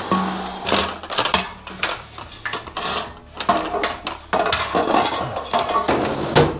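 Irregular metallic clattering and knocking from a metal LED-panel mounting frame and a support pole being handled and pressed against the ceiling.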